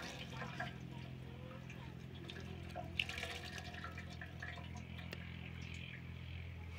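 Water dripping and splashing into a metal basin as a wet cloth is wrung out by hand.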